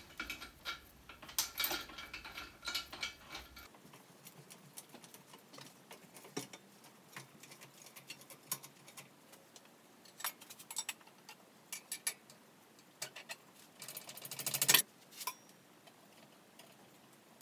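Scattered metallic clinks and taps of hand tools and metal parts in a car's engine bay as the engine is being worked free of the transmission, with a quick run of rapid clicks building up near the end, the loudest sound.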